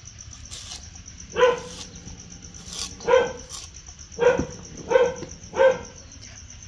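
A dog barking five times, single short barks spread a second or so apart.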